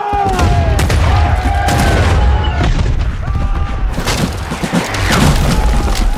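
Napoleonic-era field cannons firing in a barrage: repeated booms over a continuous deep rumble, with sharp cracks of shot and blasts throughout.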